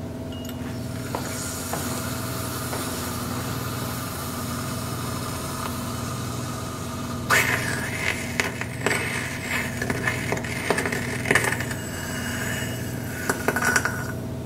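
Lithium metal reacting in concentrated nitric acid: a faint fizzing hiss, then about seven seconds in the reaction suddenly flares up, hissing and crackling with sharp pops as the released hydrogen burns, for about seven seconds. A steady low hum runs underneath.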